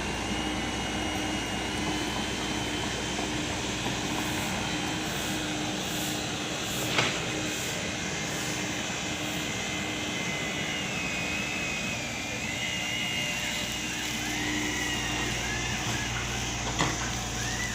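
Komatsu PC78 mini excavator running steadily, with a high wavering whine over the engine. Two sharp knocks come about a third of the way in and near the end.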